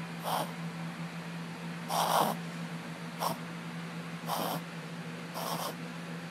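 Shih Tzu reverse sneezing: a series of harsh, noisy inhalations through the nose, about one a second. The longest and loudest comes about two seconds in.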